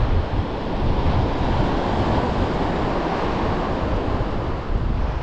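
Small surf waves washing onto a shingle beach, a steady rushing wash, with wind buffeting the microphone.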